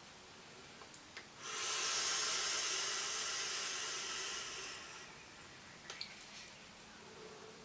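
A long hit on a sub-ohm vape running a 0.38-ohm coil at 42 watts: a breathy hiss of air and vapour lasting about three seconds, fading out at the end. A couple of light clicks come just before it.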